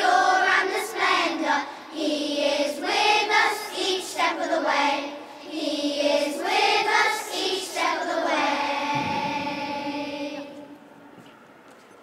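Children's choir singing together, the song ending on one long held note that fades away about ten seconds in, in the echo of a large stone church.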